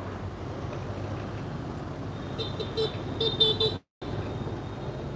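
Steady street traffic noise, with a vehicle horn tooting about six short times in quick succession a little past the middle.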